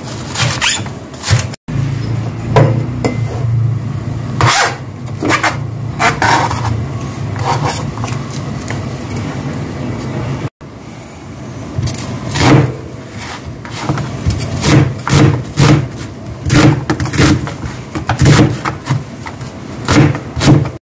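Chef's knife chopping green onion and onion on a plastic cutting board: runs of sharp knife strikes on the board, sparser in the middle and quicker near the end, over a steady low hum.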